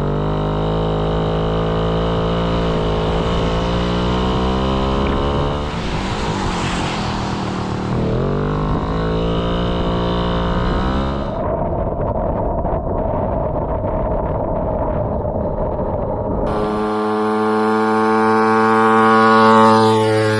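Puch Maxi moped's small single-cylinder two-stroke engine running under way, its pitch rising and falling with speed. About halfway through the sound changes abruptly, as at an edit, and near the end the engine revs higher and grows louder.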